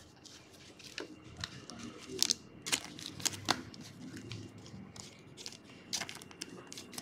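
Panini trading cards and their plastic wrapping being handled: faint rustling broken by scattered light clicks and snaps.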